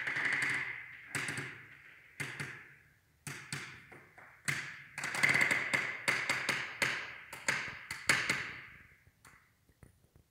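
An irregular series of sharp knocks or strikes, a dozen or so, each ringing on with an echo, coming thickest around the middle and stopping shortly before the end.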